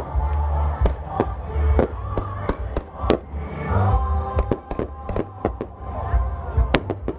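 Fireworks going off in a rapid, irregular string of sharp bangs and pops, the loudest about three seconds in and near the end, over crowd voices and music.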